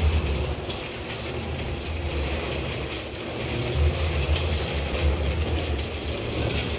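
Steady low rumble of rolling wheels, with faint irregular clacks.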